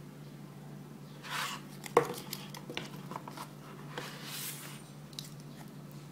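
A smartphone being handled and lifted out of its cardboard box tray: a short rub, a sharp knock about two seconds in followed by a few lighter clicks, then another rub, over a steady low hum.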